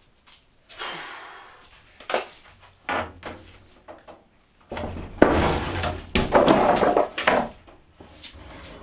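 Several separate knocks and bangs, then a burst of dense clattering and thumping about five seconds in that lasts some three seconds.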